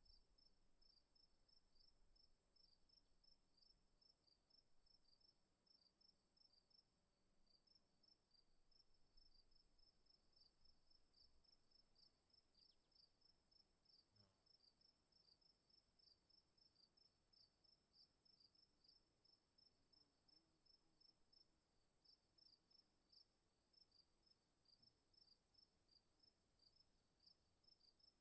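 Near silence, with faint insect chirping: short high chirps repeating evenly over a steady high whine.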